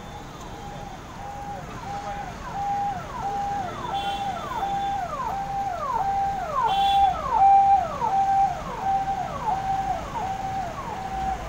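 Electronic vehicle siren passing by, cycling about twice a second through a held note and a quick falling sweep. It grows louder to a peak about two-thirds of the way in, then fades.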